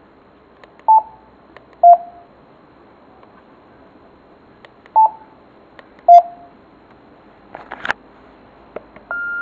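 Yaesu FTM-350 dual-band transceiver's beeps as it is operated and set scanning: two pairs of short beeps about four seconds apart, each pair a higher beep then a lower one, then a longer, higher steady beep near the end, with a few faint clicks before it.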